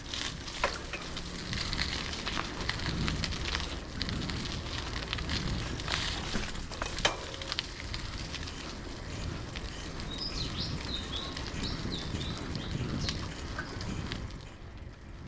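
Bicycle ride noise picked up by the rider's camera: tyres rumbling on the road, with crackling and scattered small clicks and rattles. A few short high chirps come in about ten seconds in.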